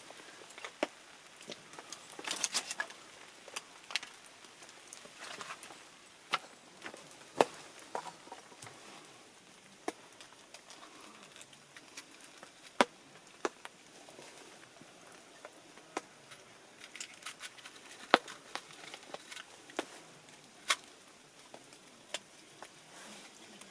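Wood campfire crackling, with irregular sharp pops over a faint hiss.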